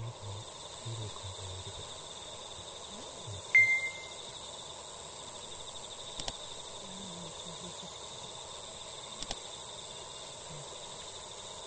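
Evening outdoor ambience with a steady high insect trill, a single short chirp about three and a half seconds in, and a couple of faint clicks later on.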